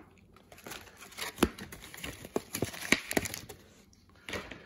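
Foil trading-card booster packs and torn plastic blister packaging being handled: irregular crinkling with sharp crackles for about three seconds.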